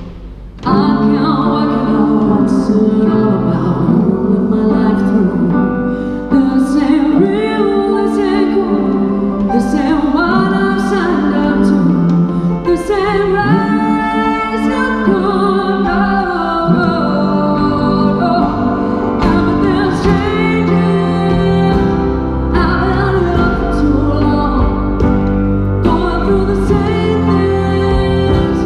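A live band plays a pop song. A woman sings long held notes over the instrumental accompaniment, with the music dropping briefly at the very start before coming straight back in.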